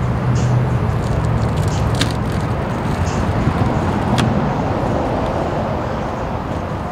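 Car running, heard from inside the cabin: a steady low engine and road rumble, with two sharp clicks about two and four seconds in.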